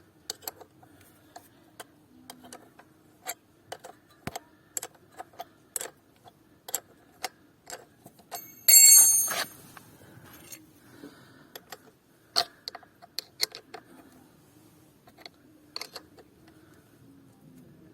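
Hand tools working on a motorcycle wheel: irregular sharp metallic clicks and taps, with one louder ringing metal clank about nine seconds in.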